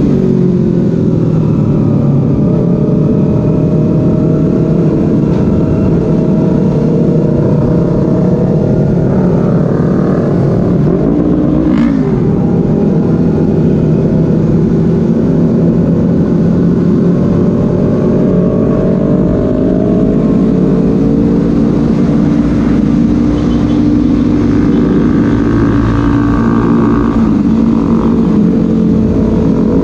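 Honda CBR250RR parallel-twin motorcycle engine running under way, its pitch rising and falling with throttle and gear changes, over a heavy low rumble of wind noise. A vehicle passes with a falling pitch about a third of the way in.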